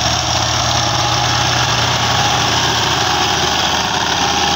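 Diesel engine of an Al-Ghazi farm tractor running steadily while pulling a tillage implement.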